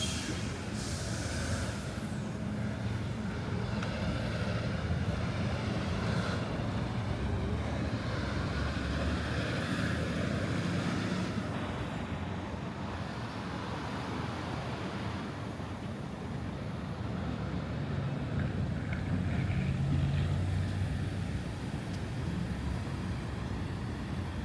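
City street traffic: a steady low rumble of engines and tyres, with vehicles passing that swell louder around the middle and again near the end.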